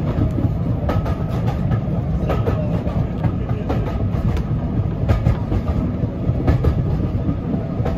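Passenger train coach running along the track, heard from inside: a steady low rumble with the wheels clicking over rail joints every second or so.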